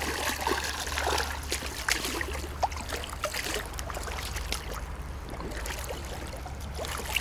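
Water sloshing and trickling around a spearfisher in the water, with many small sharp clicks and a steady low hum underneath.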